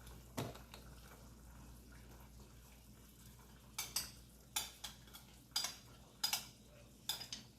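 Spoon clinking against a bowl while ground ogbono is scooped out: one dull knock about half a second in, then a run of sharp clinks, roughly one every half second, in the second half.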